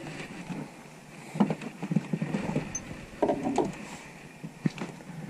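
Scattered light knocks and clunks of fishing gear being handled in an aluminum jon boat, with a short rattle of several knocks about three seconds in.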